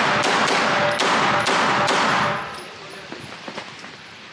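Glock 19 9mm pistol firing a rapid string of shots in the first two seconds or so, each shot echoing in the indoor range. After that only faint small clicks and movement noise remain.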